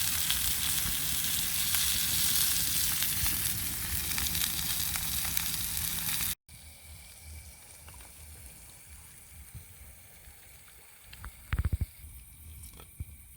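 Food frying in a pan with a loud, steady sizzle. About six seconds in it cuts off abruptly to a quieter, softer sizzle with a few light clicks, and a brief knock comes near the end.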